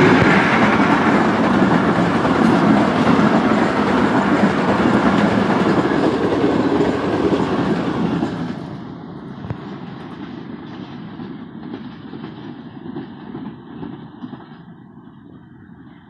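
Passenger train led by a Pakistan Railways HBU-20 diesel locomotive passing close at about 103 km/h: a loud rush of locomotive and coach wheels clattering over the rails. About eight and a half seconds in it drops away as the train recedes, leaving a fading rumble.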